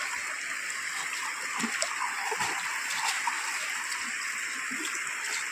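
Water splashing and running off a long mesh fish-trap net as it is lifted and worked along in a shallow river, over a steady rush of flowing water.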